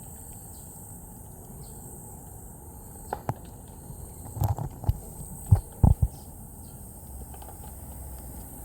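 A few short, soft low thumps and clicks, clustered between about three and six seconds in, over a steady background hiss.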